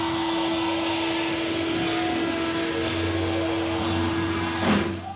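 Distorted electric guitar feedback and amplifier noise hold one steady drone, while a cymbal is struck four times about a second apart. A low bass note comes in about three seconds in, and the band ends on a final loud hit near the end, after which the sound drops away.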